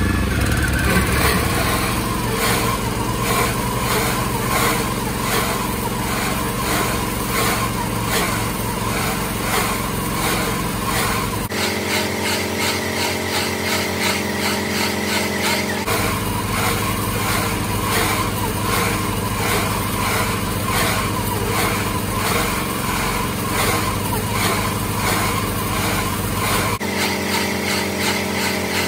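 Salsco round bale wrapper running on its Honda small gas engine: a steady, loud engine drone with a regular pulse as the bale turns and is wrapped in plastic film. The low rumble drops out abruptly about twelve seconds in, returns about four seconds later, and drops again near the end.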